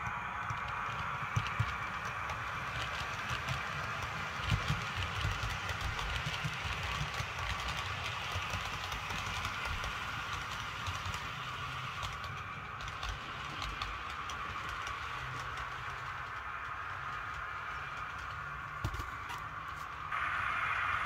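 OO gauge model HST train running on layout track: a steady rumble from the wheels and drive, with many small clicks as it crosses rail joints and points. The sound rises in level just before the end.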